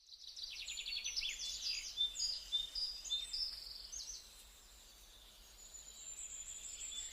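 Several birds chirping and singing in quick high trills and short whistles over a faint steady hiss, busiest in the first three seconds or so and thinning out after.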